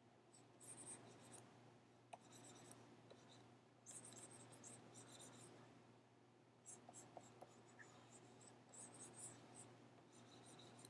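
Faint scratching of a stylus drawing on a graphics tablet, in about six short separate strokes, over a low steady hum.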